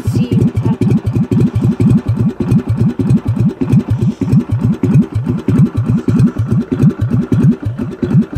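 Craftsman riding mower's engine idling with its idle turned down very low, each firing pulse heard separately in a slow, even beat of about six a second.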